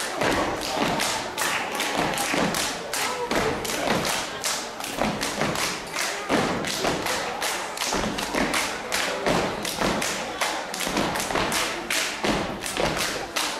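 A step team stepping: a fast, steady run of stomps and hand slaps, several beats a second, with many performers striking together on the stage floor.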